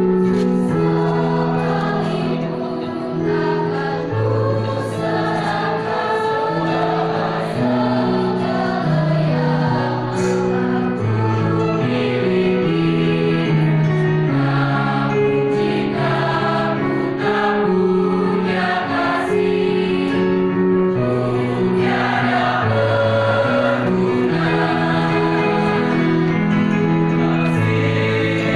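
Youth choir singing in several parts at once, with sustained notes that move from chord to chord.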